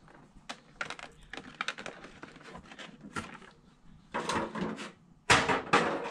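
Clear plastic blister packaging crinkling and clicking as a vinyl Funko Pop figure is worked free of it, with a few louder rustles of the plastic in the last two seconds.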